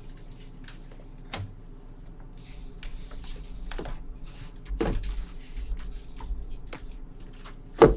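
Trading cards being handled on a table: scattered light clicks and rustles, with a sharp knock just before the end.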